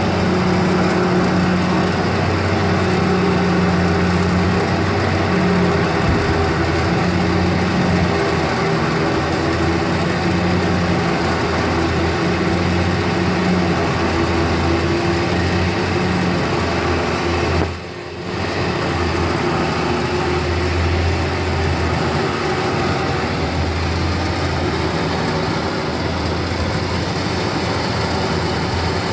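Small ferry's diesel engine running steadily with a low hum, heard from the open car deck while the hydraulic bow ramp is raised. The level dips briefly about two-thirds of the way through.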